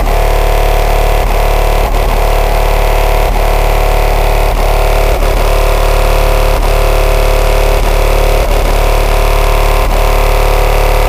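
Car audio subwoofer system playing a sustained, very loud low bass tone with one door open, heavily distorted, with sharp clicks about every two-thirds of a second.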